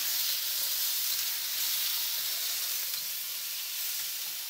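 Diced onions, broccoli and tomatoes sizzling in hot rapeseed oil in a pan as they are stir-fried. The sizzle is a steady hiss that eases slightly toward the end.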